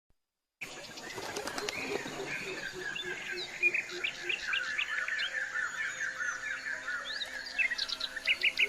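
Several birds chirping and calling over a steady outdoor background, starting abruptly after a brief silence. One bird repeats a quick, even run of notes through the middle, and a few loud, sharp chirps come near the end.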